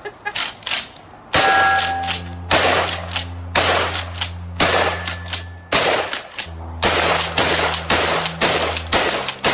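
Shotgun fired repeatedly, loud shots coming about once a second, each with a short ringing tail. A steady low hum runs underneath for much of the firing.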